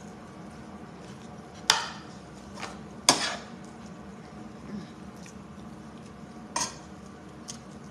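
A metal spatula clinking against a cooking pan a few times, with sharp knocks, the loudest about three seconds in.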